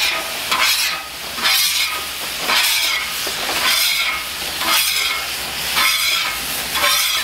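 Water squirted onto a hot griddle top sizzling and steaming while a metal griddle scraper is pushed across the surface in strokes about once a second, lifting off stuck-on food.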